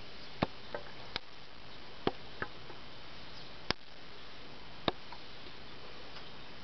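A black bear cub climbing a tree trunk: about seven sharp, scattered clicks and snaps of claws and bark over a steady hiss.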